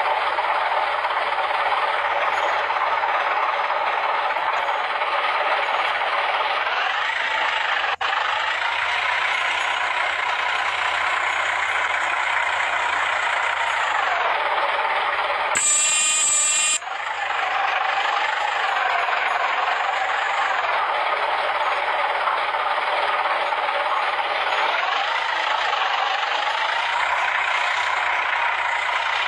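Heavy road-construction machinery running, its engine pitch rising and falling several times. About sixteen seconds in, a loud, sharp burst lasting about a second.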